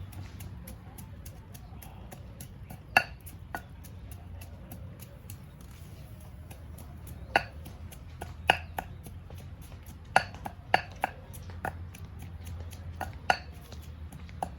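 A knife chopping on a cutting board: about eight sharp, irregularly spaced strikes, the loudest about three seconds in, over a steady low hum.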